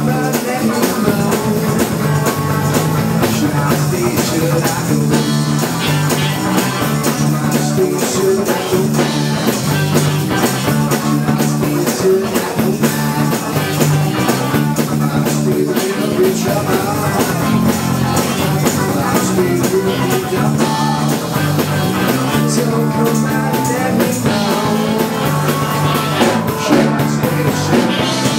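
Live band playing a rock dance number: electric guitar, bass line and drum kit keeping a steady beat, with some singing.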